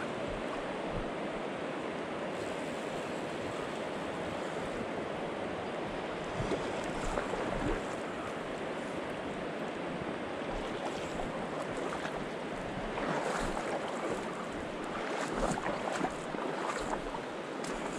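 Steady rush of a fast, shallow river running over a stony bed, with a few short sharp knocks about six seconds in and a cluster of them in the last few seconds.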